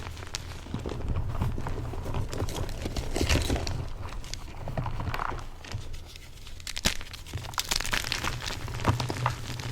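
Soft yellow-dyed BSN gym chalk being crushed: a dense, irregular crunching and crackling studded with sharp snaps. One sharp crack comes about two-thirds of the way through.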